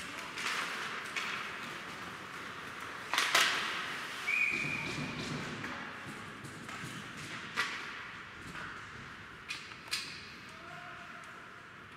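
Ice hockey play: sticks and puck clacking and knocking against the ice and boards, the loudest knock about three seconds in. A referee's whistle blows once, about a second long, just after four seconds in, stopping play. A few more knocks follow.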